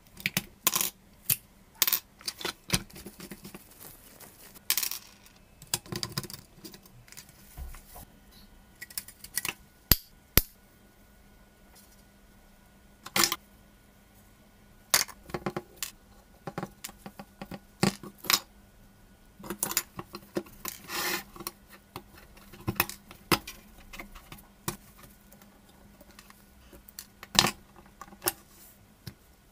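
A metal blade scraping and prying at a corroded diecast model Lamborghini, with irregular sharp clicks and clatter as its small metal and plastic parts are worked loose, handled and set down on a hard table.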